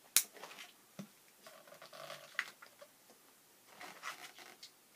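Latex 160 twisting balloon being stretched and handled: a sharp snap of the rubber just after the start, then soft rubbery squeaks and rubbing, with a short steady squeak about two seconds in.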